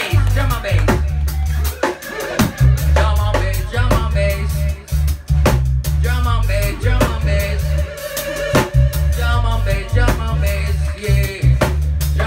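Live reggae band playing: electric guitars, a deep, steady bass line and a drum kit keeping a regular beat.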